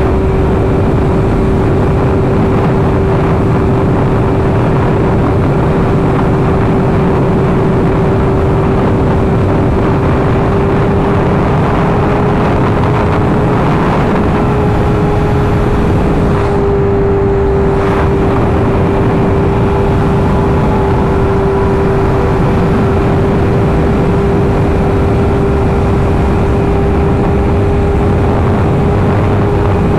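Inline-four 1000cc sportbike riding at a steady speed, its engine holding one constant note under a thick rush of wind and road noise.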